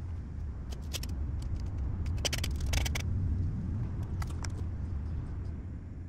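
A steady low rumble that swells about halfway through and begins to fade near the end, with short sharp scrapes and knocks of a shovel working dirt at the concrete edge, clustered a couple of seconds in.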